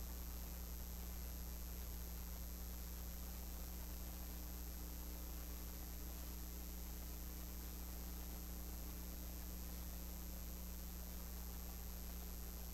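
Steady low electrical hum with hiss and a faint high-pitched whine, unchanging throughout; no other sound stands out.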